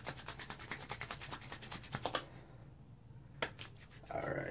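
Palms rubbed briskly together to warm and melt a scoop of thick, waxy heavy-hold pomade: rapid back-and-forth strokes for about two seconds, then softer rubbing with a single sharp click about three and a half seconds in.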